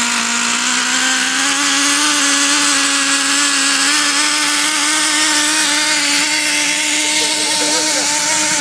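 Traxxas 3.3 two-stroke nitro engine running at high throttle, spinning the propeller that pushes the truck along: a steady, high-pitched buzzing drone. The pitch rises a little over the first couple of seconds, then holds.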